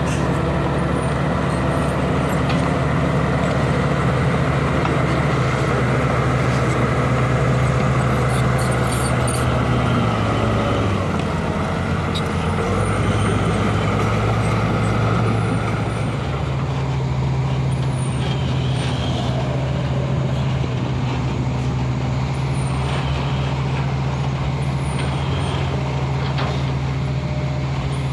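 Diesel engine of heavy road-construction machinery running under load, its low engine note dropping and shifting about ten to twelve seconds in, then holding steady.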